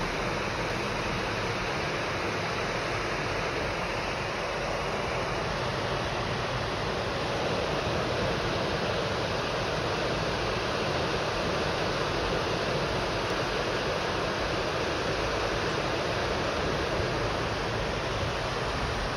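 Steady rushing noise of ocean surf breaking along the shore, even in level throughout.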